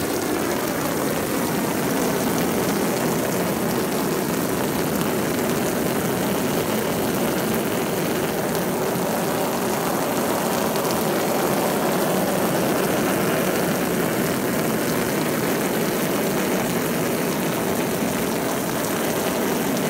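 A jet of water spraying onto a sheet of waterproof fire-suit fabric and spattering off it: a steady rushing hiss that does not let up.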